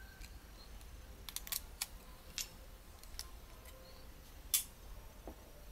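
Sharp clicks and snaps from a Nikon Coolpix S02 compact camera's housing as it is pried apart with a pry tool and its front shell is unclipped from the body. There are about half a dozen clicks, the loudest about four and a half seconds in.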